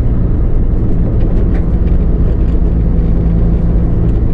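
Engine and road noise of a recovery truck driving steadily, heard from inside the cab: a steady low drone.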